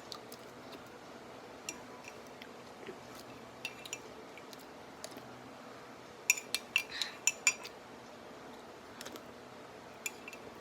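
A metal spoon clinking against a glass in scattered light taps, with a quick run of clinks a little past the middle.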